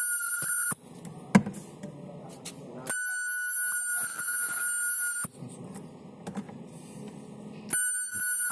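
Handheld ultrasonic spot welder whining at a steady high pitch while its horn is pressed into the plastic, in spot welds of about two seconds each: one ends just under a second in, another runs from about three to five seconds, and a third starts near the end. A single sharp knock about a second and a half in.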